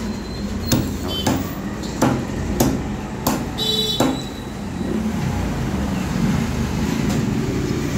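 Heavy cleaver chopping chicken into curry-cut pieces on a wooden chopping block: about six sharp chops in the first four seconds, then the chopping stops over a steady low background noise.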